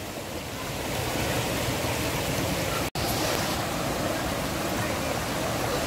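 Shallow, fast-flowing rocky river rushing over boulders in steady rapids, growing louder over the first second, with a momentary break about three seconds in.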